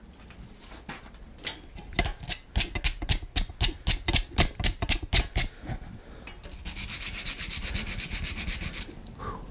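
A quick run of rhythmic scraping strokes, about four or five a second, that stops about halfway through, followed by a steady hiss lasting about two seconds.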